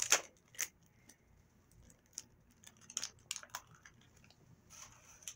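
Scattered crinkles and clicks of plastic wrapping as a small L.O.L. Surprise ball is handled and unwrapped, with quiet gaps between.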